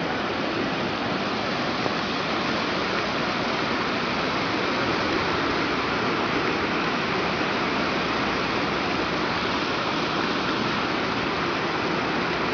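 Steady rush of floodwater.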